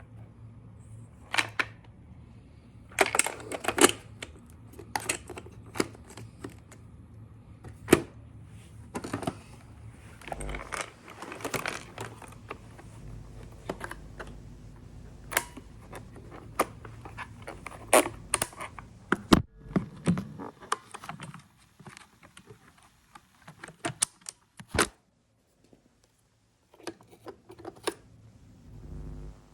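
Robot vacuum running over scattered LEGO bricks: irregular clicks and clattering of hard plastic bricks being knocked about and picked up, over the steady hum of the vacuum's motor. The hum drops away about twenty seconds in, leaving a few last clicks.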